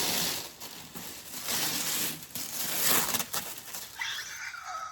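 Packaging rustling and crinkling in uneven surges, with small knocks, as a boxed doll and its wrapping are handled.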